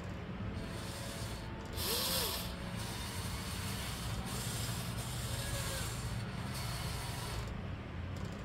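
Electric gear motors of a Volvo E160E RC excavator running slowly with a steady rasping whir: the battery is nearly flat, so the arm barely moves. A brief louder rasp about two seconds in.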